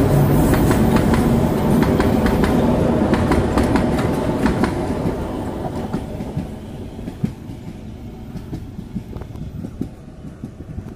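Narrow-gauge train coaches rolling past, their wheels clicking over the rail joints, then fading steadily as the train moves away down the line. The locomotive's engine tone dies out in the first second.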